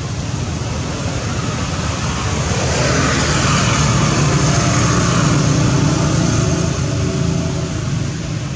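A motor vehicle passing: engine hum and road noise that grow louder from about two seconds in, peak around the middle, then fade.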